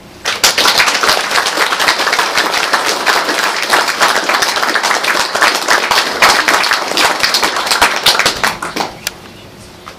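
Audience applauding, starting about half a second in and dying away about a second before the end.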